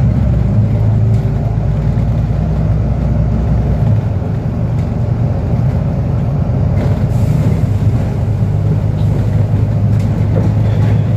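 Bus engine and road noise heard from inside the passenger cabin while the bus is under way: a steady, loud low drone. A deeper rumble underneath drops away about four seconds in.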